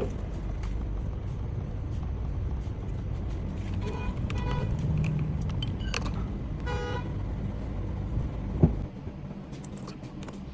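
Car engine running with a steady low rumble, then cut off with a sharp click near the end. Two short horn toots sound midway.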